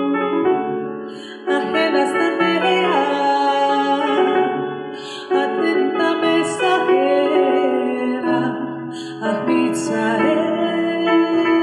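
Music: a woman singing slow phrases over sustained keyboard chords.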